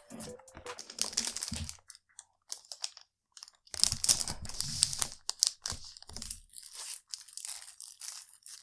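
Packaging being handled and unwrapped: crinkling, tearing and crunching in uneven bursts, with a run of small sharp clicks near the end.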